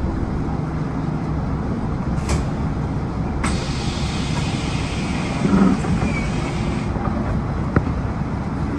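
A stationary bus's engine idling with a steady low rumble. About three seconds in, a hiss of air starts and runs for a few seconds. A couple of sharp clicks come through as well.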